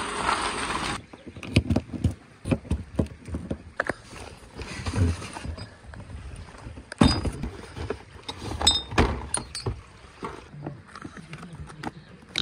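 Handling noises: a string of short clicks, knocks and rustles, the sharpest knock about seven seconds in. A steady rush of noise fills the first second and then cuts off.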